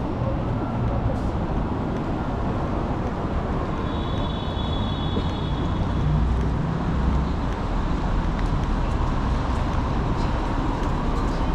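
Steady city street traffic noise, with vehicles running and passing as a low rumble. A faint high-pitched tone sounds for about a second and a half, about four seconds in.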